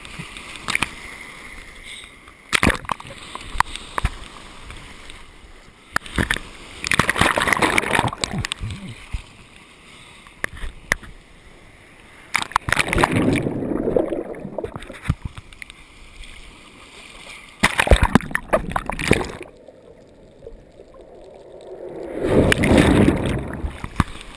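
Breaking surf and whitewater splashing and sloshing over an action camera mounted on a surfboard, in irregular bursts with crackling water on the housing. Deeper, muffled surges come as the camera is swamped by foam.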